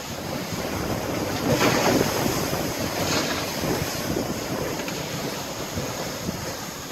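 Water rushing past a sailing catamaran's hulls as it sails fast, with wind noise on the microphone; the wash swells loudest about two seconds in, with a smaller surge a second later.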